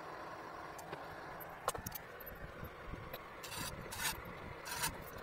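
Hand rivnut tool being worked into the front pillar's sheet metal, giving three short scraping rasps about half a second apart in the second half, after a few light clicks.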